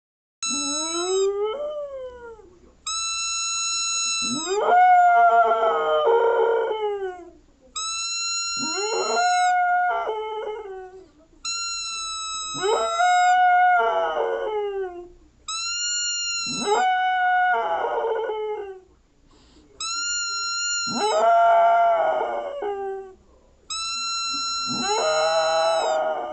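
A whistle blown in steady notes about six times, each answered by a dog howling, the howl rising and falling in pitch before fading. The dog howls in reaction to the whistle's sound.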